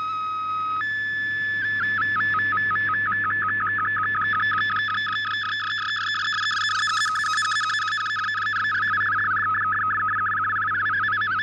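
MFSK32 digital picture signal from a shortwave radio broadcast, as decoded by fldigi. A steady tone steps up in pitch under a second in, then from about a second and a half it warbles rapidly up and down between two pitches as the picture data is sent.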